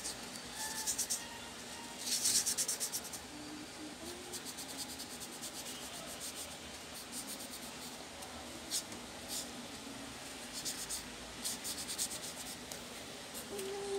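Tissue rubbing back and forth on a laptop's copper heatsink as it is wiped clean, in short bursts of quick scrubbing strokes. The loudest burst comes about two seconds in, with more near the end.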